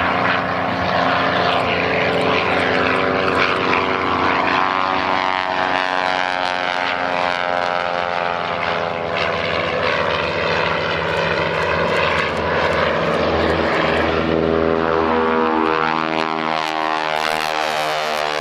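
Formation of propeller aircraft flying past, their engine and propeller sound loud and steady. The pitch falls through the middle as they go by, and rises again near the end as more aircraft approach.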